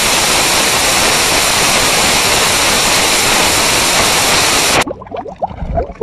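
Loud, steady white-noise static that cuts off suddenly about five seconds in. After it comes a quieter, rapid run of short rising chirps, like water bubbling.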